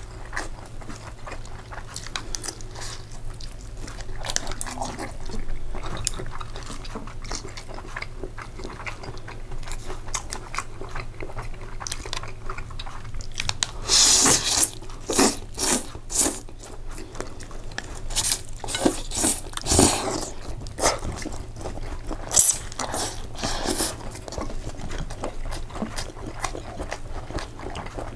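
A person eating pasta close to the microphone: continual chewing and biting, with a run of louder, sharper eating sounds from about halfway through.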